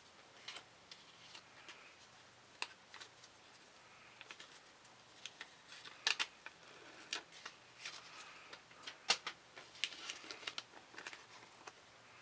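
Contact paper being handled as its backing is peeled off: faint, irregular crinkles and sharp crackling clicks of plastic film and backing paper, busier in the second half.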